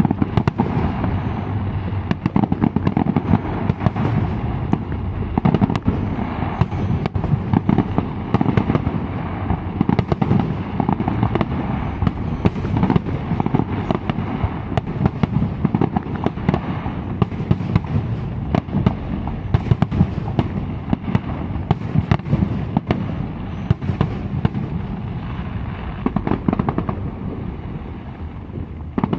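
Aerial firework shells bursting in rapid succession: a dense, continuous barrage of bangs with a heavy low rumble, easing slightly near the end.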